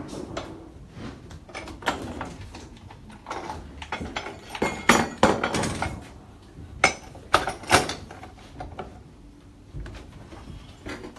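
Irregular metallic clinks and knocks of hand tools and pipe being handled and worked at a plumbing bench, with a busier run of sharp knocks in the middle.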